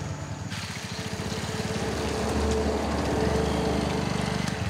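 Motorcycle engine running with a fast, even exhaust pulse, growing a little louder about two seconds in.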